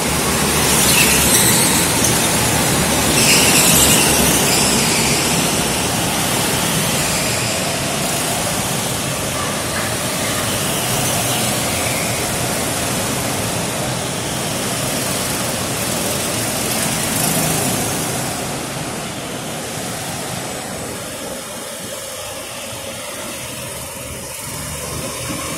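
A pack of go-karts racing around a track, engines and tyres running together, with sharper high squeals in the first few seconds. The noise eases off over the last few seconds.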